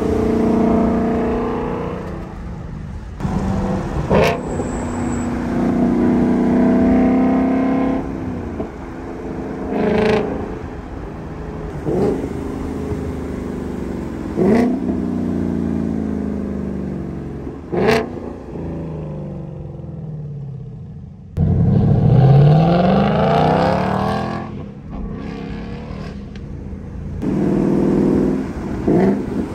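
Ford Mustang Mach 1's V8 exhaust with a Steeda mid pipe, heard from a car alongside as it accelerates and rises in pitch several times. About five sharp cracks punctuate the run, and a sudden hard pull about three quarters of the way through is the loudest part.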